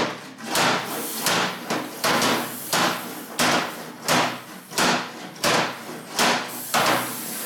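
Hammer blows in an even rhythm, about eleven strikes roughly two-thirds of a second apart, each ringing briefly.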